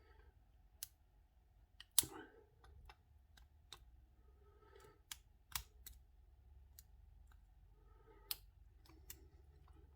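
Quiet, irregular metallic clicks and taps of a hook pick and tension wrench working the pin tumblers of a brass padlock, the loudest about two seconds in, with soft handling rustle between them.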